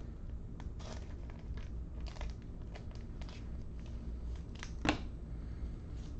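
Scattered small clicks and rustles of handling, with one sharper click about five seconds in, over a low steady hum.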